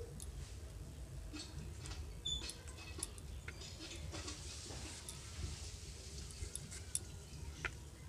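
A tomato being sliced on a boti, the upright curved kitchen blade, with faint irregular clicks as the blade cuts through and pieces fall, over a low steady rumble.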